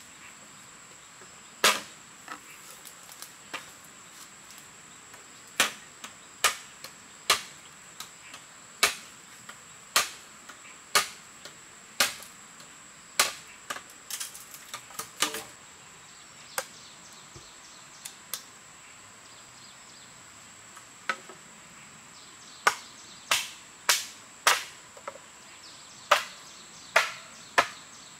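Machete strokes on green bamboo: sharp cracks, roughly one a second, in runs with short pauses between them.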